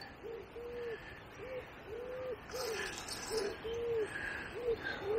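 A bird calling in a steady series of short, low hooting notes, about two a second, with faint higher chirps from other birds.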